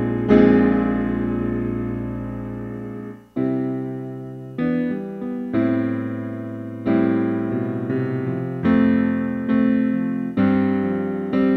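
Background piano music: slow chords struck and left to fade. One rings for about three seconds, then new chords follow every second or so.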